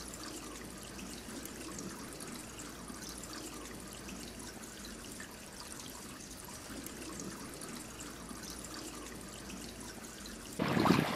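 Faint, steady trickling of water. Near the end a louder rush of wind and water noise cuts in.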